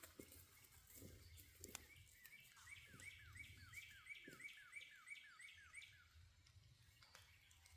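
Faint songbird song: a quick series of about a dozen repeated downslurred whistled notes, about three a second, over soft scuffing footsteps.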